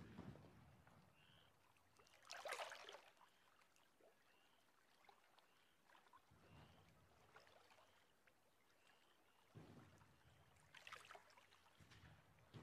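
Very quiet water sloshing and splashing as men wade through water, with a louder splash about two and a half seconds in and another near eleven seconds. Faint short chirps repeat about once a second in the background.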